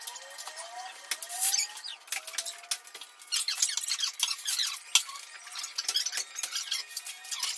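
Repeated short squeaks with light clicks and taps from hand work on a newly installed sectional garage door.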